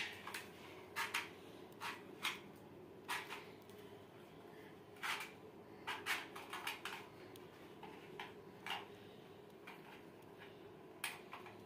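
Scattered faint clicks and knocks of a plastic toy gun being handled and worked, over a faint steady hum.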